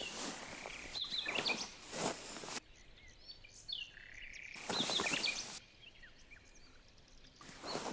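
Birds chirping over a faint outdoor background, broken by bursts of rustling noise that cut in and out abruptly three times.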